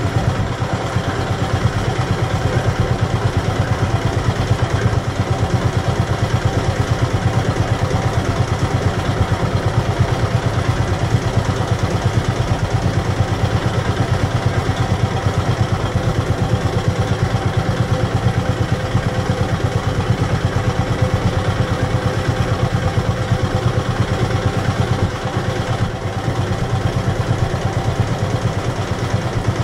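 A boat's engine running steadily, a continuous low drone with a fast, even pulse.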